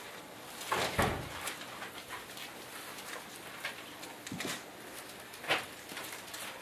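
Bible pages being leafed through and paper handled close to a pulpit microphone: a few short rustles, the loudest about a second in and another near five and a half seconds.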